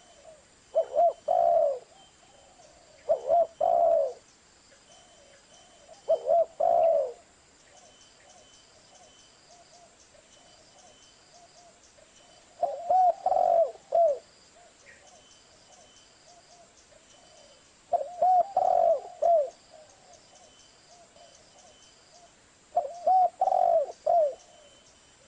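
Spotted dove (Streptopelia chinensis) cooing: six short phrases of three or four low notes each, a few seconds apart, with a longer pause in the middle.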